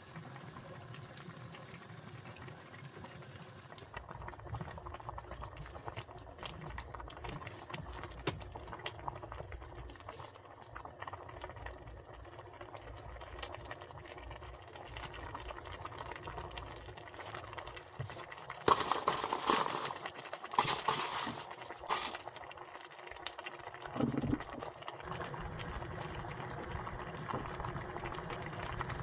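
Kimchi stew bubbling at a steady boil in a wide pan, with scattered light clicks from a ladle stirring it. A few louder noisy bursts come about two-thirds of the way through.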